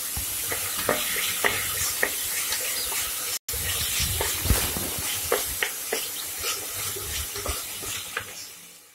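Chopped tomatoes and onions sizzling in hot oil in an open pressure cooker, softening as they sauté. A wooden spatula stirs them, with scattered clicks and scrapes against the pot. The sound drops out briefly about three and a half seconds in and fades away near the end.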